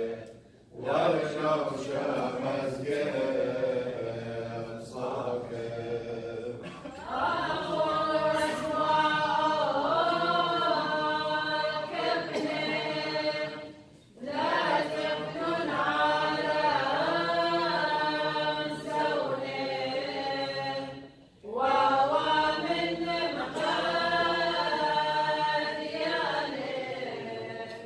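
Women's church choir chanting an Assyrian Church of the East liturgical hymn in long sung phrases with brief breaks between them, growing fuller about seven seconds in.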